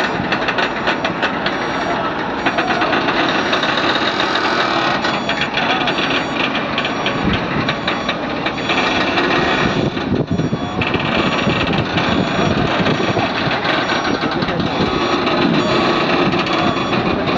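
Heavy-haul truck's diesel engine running steadily under load, with people talking in the background.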